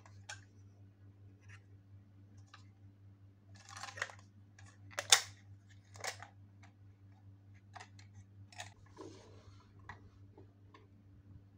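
Small clicks, scrapes and rattles of a toy fire truck's plastic parts being handled and its rear box door worked open. The loudest is one sharp click about five seconds in. A faint steady low hum runs underneath.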